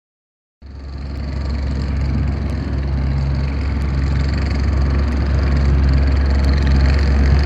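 Skid steer engine running steadily under work, a loud low hum with mechanical noise over it. It cuts in suddenly just over half a second in and builds a little over the next second or so.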